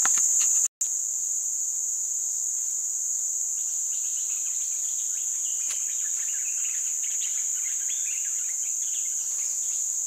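Steady, high-pitched drone of a chorus of insects, cut out for an instant just under a second in, with a faint click about six seconds in.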